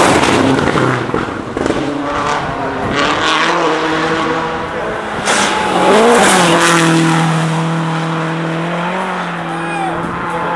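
Subaru Impreza WRC rally cars passing at full speed, their turbocharged flat-four engines revving hard. One car goes by loudly at the start; a second comes through around the middle, its engine note then held steady for a few seconds.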